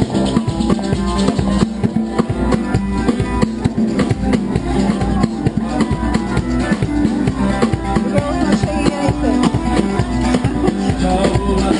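Street band playing a fast Angolan-style dance rhythm: drums and shaker keeping a steady beat under a plucked-string line.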